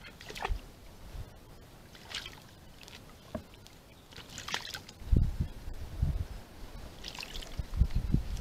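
Harris's hawk bathing in a shallow plastic water basin: water splashing and sloshing in scattered short bouts as it flaps and dips. The heaviest splashes come about five seconds in and again near the end.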